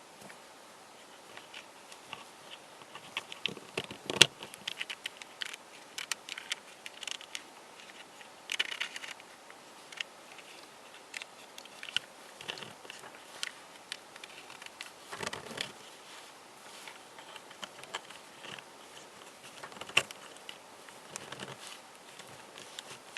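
Cast polyurethane resin puzzle pieces being handled: scattered light clicks and taps as parts knock together, with brief scraping as pieces slide against each other. A sharp knock about 4 s in is the loudest, and another comes about 20 s in.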